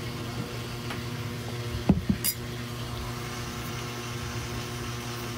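Glass mug set down on a table: two soft knocks and a light clink about two seconds in, over a steady low hum.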